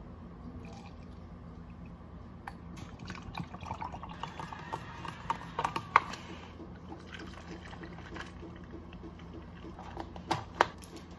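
Clear liquid poured from a plastic bottle into a plastic measuring jug, then a metal bar spoon stirring and clicking against the jug's sides. Near the end a plastic dome lid is pressed onto a cup with a few sharp clicks.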